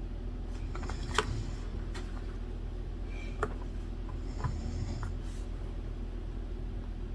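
Pen writing on paper at a desk, with a few sharp taps or clicks, the loudest about a second in, over a steady low hum.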